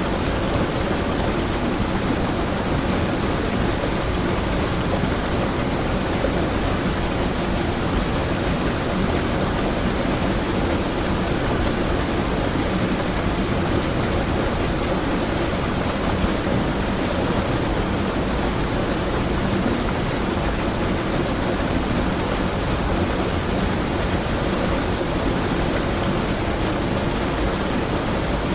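River water rushing over a small waterfall, a steady, even rush with no breaks.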